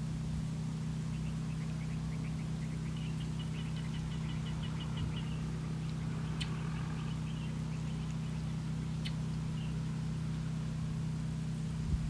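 A motor running steadily in the distance, a low even hum. Over it come a faint quick run of high bird chirps in the first half and two short sharp ticks later on.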